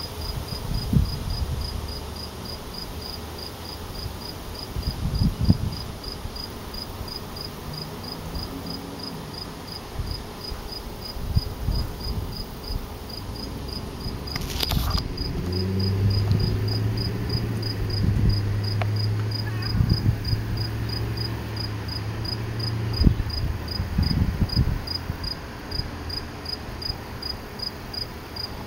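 A cricket chirping steadily, about two high chirps a second. Underneath are low rumbles and thumps, a low hum for several seconds past the middle, and one sharp click about halfway through.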